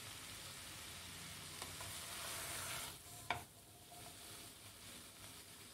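Ragi noodles and vegetables being stir-fried in a nonstick frying pan, stirred and tossed with a spatula, with a faint sizzle. The sizzle drops away about three seconds in, just before a single sharp knock.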